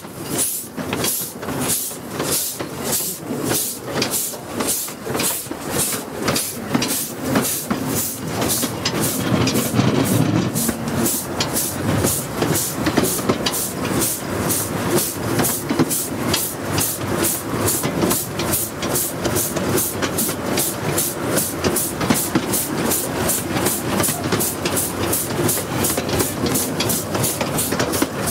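A 15-inch gauge miniature steam locomotive working a train. Its exhaust beats quicken as it gathers speed, then settle to a steady beat of about three a second. Steam hisses throughout from its open cylinder drain cocks.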